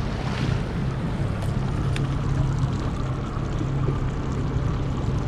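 75 hp Yamaha outboard idling with a steady low hum, under wind and water noise.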